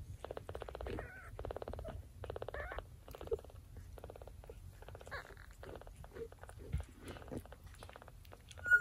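Mother cat purring close up against her nursing kittens: a fast, even pulsing that comes in runs of about half a second, broken by short gaps with each breath. A short, loud, high squeak near the end.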